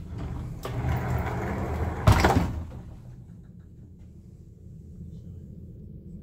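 Wooden wardrobe door being opened: a rushing scrape of about a second and a half, ending in a sharp knock about two seconds in.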